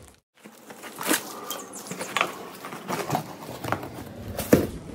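Packaging being handled and opened by hand: irregular rustling and crackling with scattered clicks and ticks, and one sharper click near the end.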